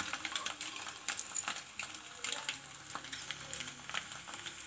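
Boiled eggs frying in mustard oil in a small aluminium pot: the hot oil crackles and spits in scattered sharp pops over a faint sizzle.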